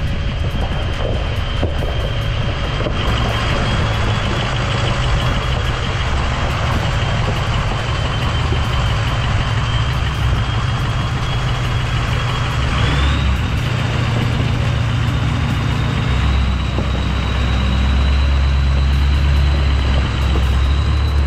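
Pickup truck driving, with a continuous engine and road rumble and a steady high-pitched tone over it. The rumble grows heavier about 16 seconds in.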